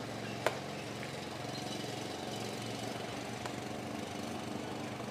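A pitched baseball smacking into a catcher's mitt with a single sharp pop about half a second in, over a steady low engine hum.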